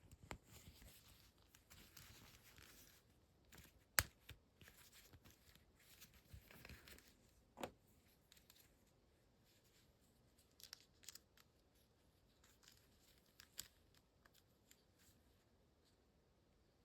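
Quiet handling sounds of unboxing an action figure: packaging rustling and crinkling, with scattered sharp clicks and taps, the loudest about four seconds in.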